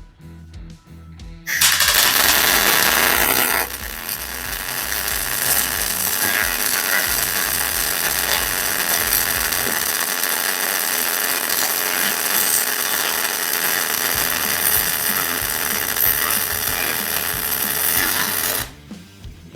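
Welding arc crackling and buzzing steadily for about seventeen seconds, with a louder, harsher start in the first couple of seconds, as the seat post and battery box mounts on the motorcycle frame are welded in.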